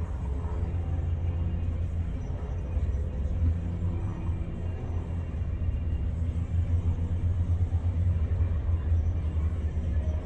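Cessna 172N's four-cylinder Lycoming engine at takeoff power, heard from a distance as a low, steady drone while the plane lifts off and climbs away.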